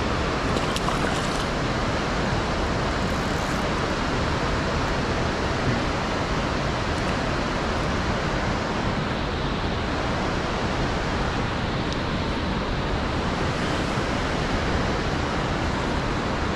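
Steady, even rush of water released from a dam, a constant hiss with no change in level.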